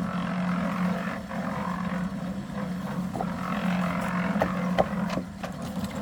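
A machine's motor running with a steady hum, with a few short clicks and knocks about four and a half seconds in.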